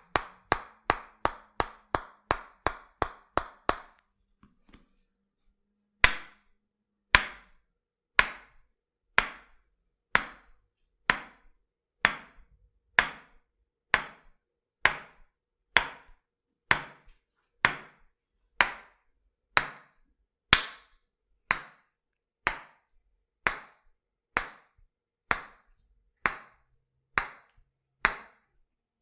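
Tok-sen wooden hammer strikes in the massage: quick taps about three a second for the first few seconds, then after a short pause, slower single knocks evenly spaced about one a second.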